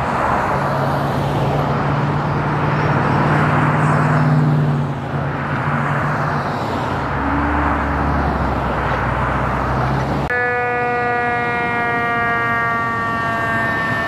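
Freeway traffic with the low hum of heavy vehicle engines. About ten seconds in, after a cut, a fire engine's air horn sounds one long blast lasting about four seconds, its pitch sagging slightly.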